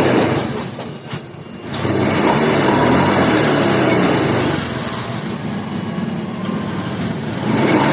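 Honda Scoopy FI scooter engine and CVT drive running under throttle: it is low for the first second and a half, then picks up and holds steady. This is a test run to check for a strange rustling noise near the CVT that came from a stick of wood caught at the wheel; the test afterwards finds the noise gone.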